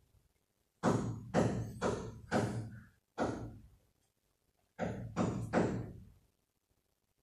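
Heavy knocks or thuds, each with a short ringing tail: a run of five at about two a second, then three more after a short pause.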